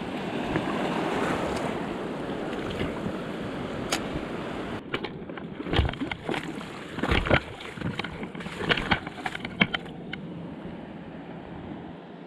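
Surf washing over a coral reef flat, with wind on the microphone. About five seconds in comes a run of irregular crunching steps and splashes on the wet reef, which stops a couple of seconds before the end.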